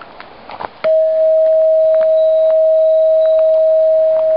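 A homemade bell made from a hanging metal cylinder, struck once with a mallet just under a second in, rings with one loud, clear, steady tone that holds without fading. It is rung like a door chime to announce a visitor. A few light knocks come just before the strike.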